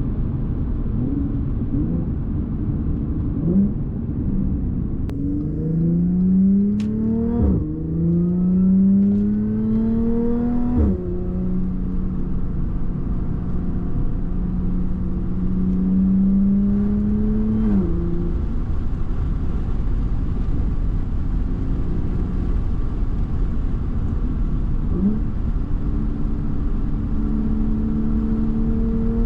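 Supercharged Audi V6 accelerating through two gears: the engine pitch climbs, drops sharply at each upshift, then holds steady at cruise. Its pitch falls near the middle, as if lifting off, and rises briefly again near the end, all over a steady road rumble.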